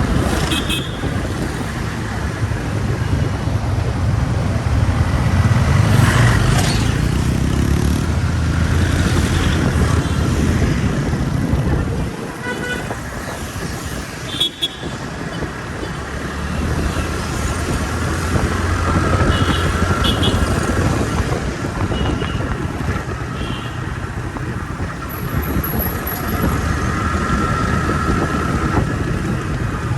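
A vehicle engine running amid road traffic noise, with short horn toots now and then.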